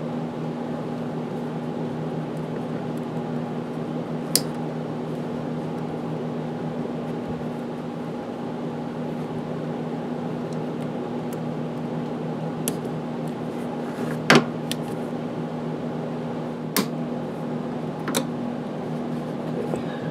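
Steady machine hum in a small workshop, broken by a few sharp clicks of side cutters snipping zip ties off the motorcycle's brake line and wiring, the loudest about two-thirds of the way through.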